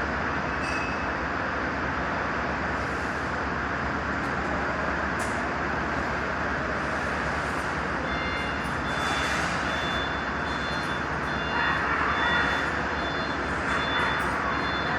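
Steady running noise of a vehicle engine, with a faint high whine joining about eight seconds in.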